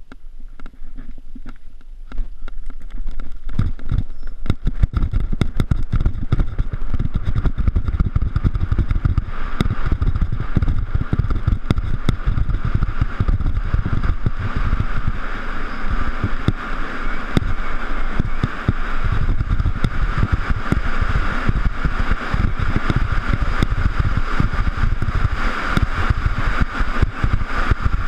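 Mountain bike riding over a rough trail: a steady low rumble with dense rattling clicks, rising sharply about three seconds in and staying loud.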